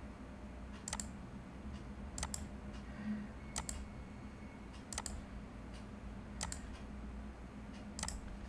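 Computer mouse clicking, six sharp single clicks about a second and a half apart, as points of a line are picked one after another, over a steady low hum.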